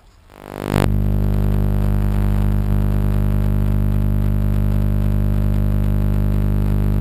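Loud, steady electrical hum of a microwave-oven magnetron setup powered from its high-voltage transformer. It swells up within the first second, then holds unchanged.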